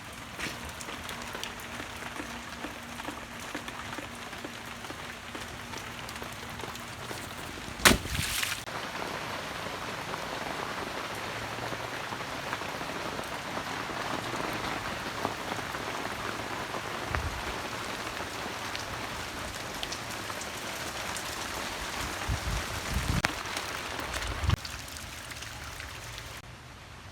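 Steady rain falling and pattering, with a sharp loud knock about eight seconds in and a few low thuds near the end.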